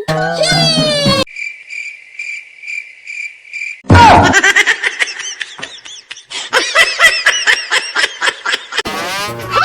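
Cartoon sound effects: a quick rising whistle, then a steady high electronic tone pulsing about twice a second for about two and a half seconds, then a busy run of high warbling chirps and squeaks.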